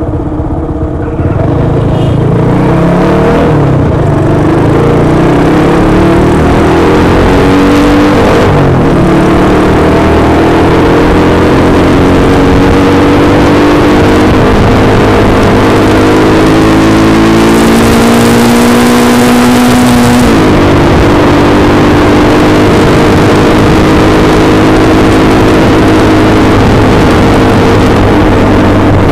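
Honda Win 100 single-cylinder four-stroke engine at full throttle, its pitch climbing steadily through each gear and dropping sharply at two upshifts, about a third and about two-thirds of the way in.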